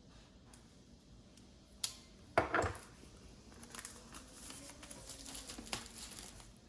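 Hands opening the Magic Keyboard's retail box packaging: a click and a knock about two seconds in, then continuous handling noise with small clicks as the package is worked open.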